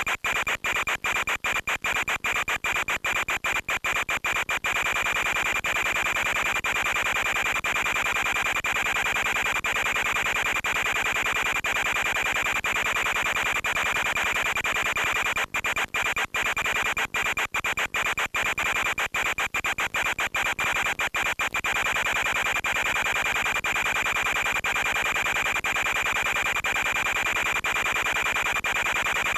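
Steady radio static with a constant high whine from the FPV video link's audio channel, cut by many brief dropouts in the first few seconds and again from about the middle of the stretch.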